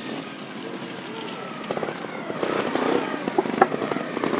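Trials motorcycle engine revving in uneven blips, with sharp crackling pops, growing louder through the second half.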